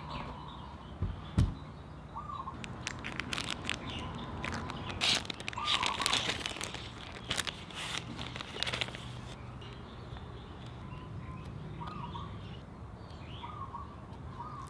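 A plastic bag crinkling as an LED light strip is handled: a dense run of crackles from about three to nine seconds in, after two low thumps near the start. Birds chirp with short repeated calls throughout.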